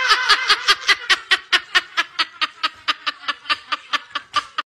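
Rapid, rhythmic laughter, about six to seven beats a second, slowly fading and cut off abruptly near the end.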